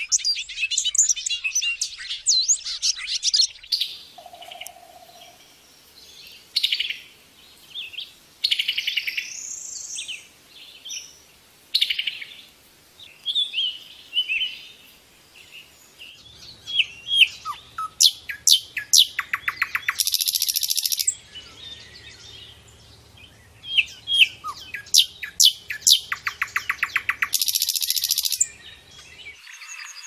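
Songbirds singing. A bobolink's rapid, bubbling, tinkling song fills the first few seconds, followed by scattered phrases. From about sixteen seconds a common nightingale sings loud series of repeated whistled notes broken by two long rapid trills.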